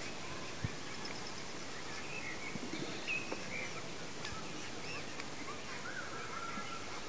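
Mute swan cygnets peeping: scattered short, high-pitched chirps over steady outdoor background noise.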